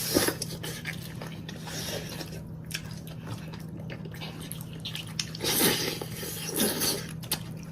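A person eating noodles with braised lamb trotters: wet chewing and biting sounds, louder from about five and a half seconds in, over a steady low hum.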